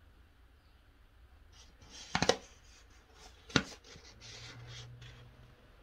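Paper pattern sheet being handled: a few short crisp rustles about two seconds in and a single sharper tap or crinkle about three and a half seconds in. A faint low hum follows for a second or so.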